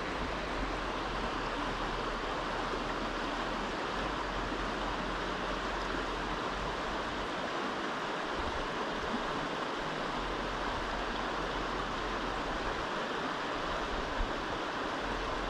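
River water rushing steadily, an even noise with no breaks.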